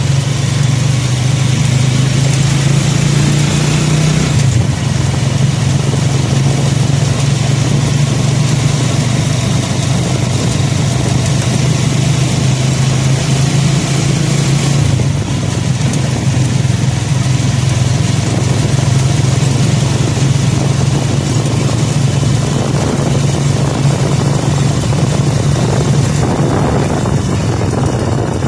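Motorcycle engine running steadily while riding, its note dropping a little about four seconds in and again about fifteen seconds in, with wind noise on the microphone.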